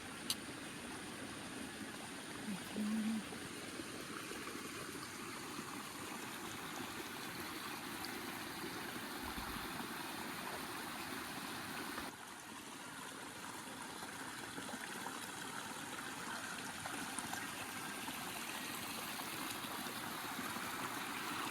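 Steady rush of flowing water, like a stream, with a single click just after the start, a short low hum about three seconds in, and a brief drop about twelve seconds in.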